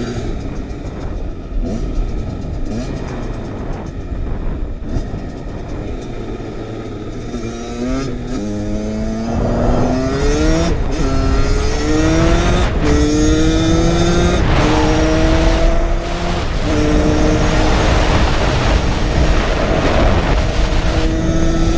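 Kawasaki KX85 two-stroke single-cylinder dirt bike engine heard from onboard: it runs at part throttle for the first several seconds, then is revved hard through the gears from about eight seconds in, its pitch climbing and dropping back at each of several shifts before holding fairly steady near the end.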